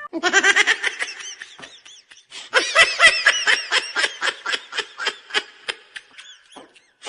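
High-pitched, rapid cackling laughter in two bursts, a short one and then a longer one after a brief pause.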